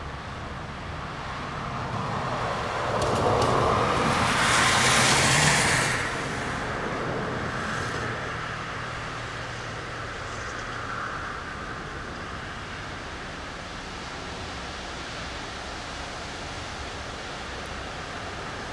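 Road traffic noise with one vehicle passing close: its tyre and engine noise swells from about two seconds in, is loudest around five seconds and drops away by six, leaving a steady background of distant traffic with a low hum.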